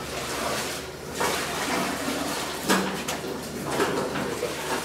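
Sake mash (moromi) being ladled from a steel tank into cloth sake bags: wet sloshing and pouring with knocks of the ladle and bags, the sharpest knock about three seconds in, and short bits of workers' voices.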